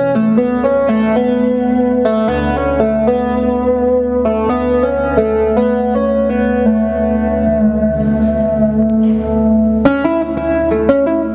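Acoustic guitar music: a steady stream of plucked notes.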